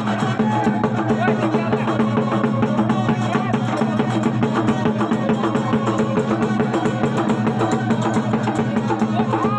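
Dhol drum beaten in a fast, steady rhythm.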